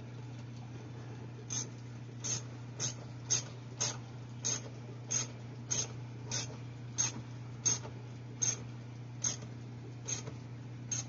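Ratchet with a 7 mm socket clicking as it tightens a hose clamp onto filter tubing: sharp single clicks about every half second, starting about a second and a half in. A steady low hum runs underneath.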